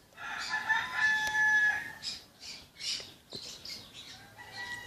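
A bird calling: a drawn-out call of a few held tones lasting about two seconds, then fainter, scattered short sounds.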